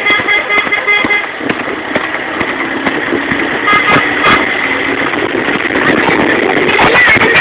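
Road traffic passing close by, with engine and tyre noise throughout. A vehicle horn beeps in quick repeated pulses for about the first second, and another horn toots briefly about four seconds in.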